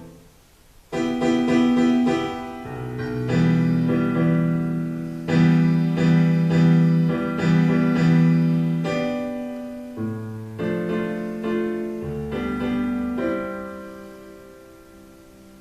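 Slow piano music: chords struck every second or two, each left to ring and fade, dying away near the end.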